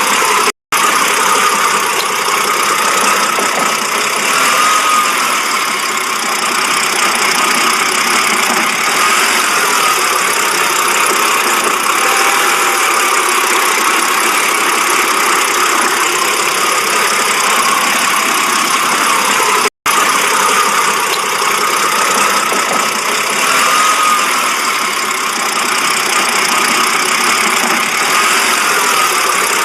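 BMW engine idling roughly, a steady running sound with a faint wavering whine over it. Two brief dropouts break the sound, once near the start and once about two-thirds of the way through.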